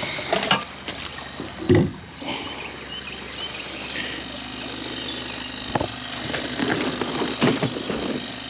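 Irregular knocks and thumps on a fishing boat as a just-caught catfish is handled on board, over a faint steady hum.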